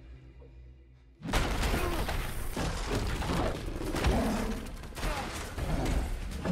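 Action-film sound effects: a low, quiet rumble, then about a second in a sudden loud crash of wood breaking as the monstrous Goro smashes into the barn. Continuing crashing, splintering and heavy thuds follow.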